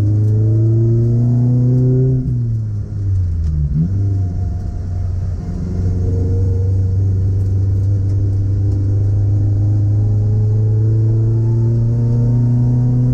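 Haima Haifuxing's engine heard from inside the cabin at track speed: the revs climb, fall away about two seconds in, then rise slowly and steadily as the car accelerates.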